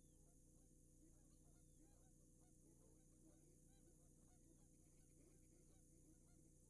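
A distant flock of waterfowl calling: many short, faint honking calls overlap throughout, several a second, over a steady background hum and hiss.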